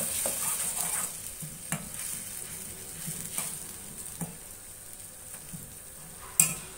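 A perforated steel skimmer stirring and scraping a thick tomato-onion masala frying in oil in a kadai, with the masala sizzling, the sizzle strongest in the first second or so. Separate scraping strokes come every second or so, and a sharp metal clack on the pan sounds near the end.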